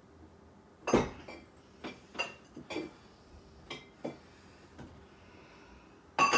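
A rice storage canister and the cup used for scooping rice being handled: scattered knocks and clinks, the loudest about a second in and two more close together near the end.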